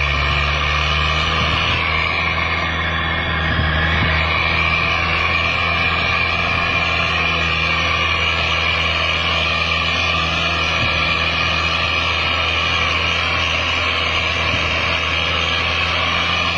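A 4x4's engine running steadily while driving over sand, heard from inside the cab with a steady rushing noise over it.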